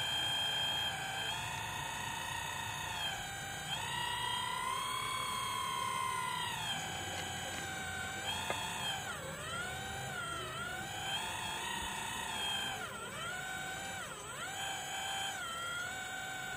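Model logging truck's hydraulic pump whining as its loading crane lifts a log, the pitch sagging and recovering several times as the load changes.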